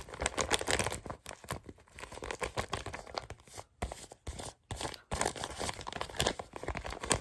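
Homemade paper squishy being squeezed and handled, its paper crinkling and crackling in quick, irregular bursts.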